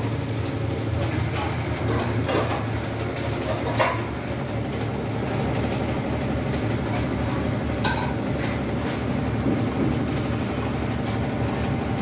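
Whirlpool top-loading washing machine running with a steady low hum, with a few light clicks and knocks about two to four seconds in and again near eight seconds.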